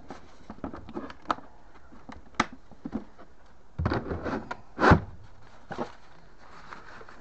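Hard plastic tool case clicking and knocking as it is packed into a metal tool-chest drawer. A plastic bag rustles about four seconds in, followed by one sharp knock, the loudest sound.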